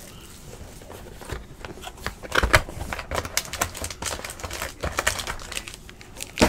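Cardboard box of 2017 Panini Limited football cards and a foil card pack being handled: a run of small clicks, taps and crinkles, the loudest about two and a half seconds in.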